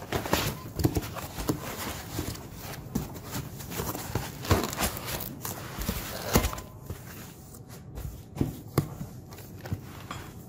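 White foam packing insert being worked loose and lifted out of a cardboard box: irregular knocks, scuffs and rubbing of foam against cardboard, busiest in the first seven seconds. After that come a few scattered knocks as hands reach in among the parts packed in the box.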